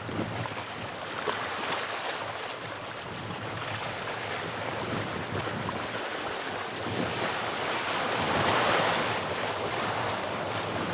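Small sea waves washing and surging over shoreline rocks, with wind on the microphone; one surge swells louder about eight seconds in.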